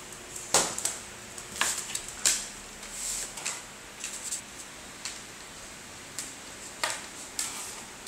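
A husky biting and pawing at a plush slipper on a tile floor: irregular clicks and short scuffs, a few sharper clicks standing out.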